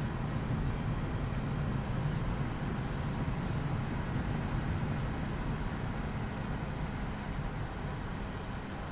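Steady cockpit noise of a Gulfstream G550 in flight on approach: a constant low hum under the rush of airflow.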